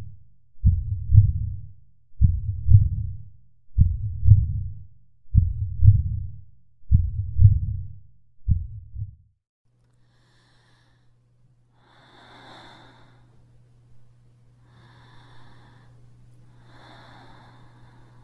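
Recorded heartbeat: slow paired low thumps, lub-dub, about every one and a half seconds, stopping suddenly about nine seconds in. After a short pause comes a faint steady low hum, then several slow, rasping breaths.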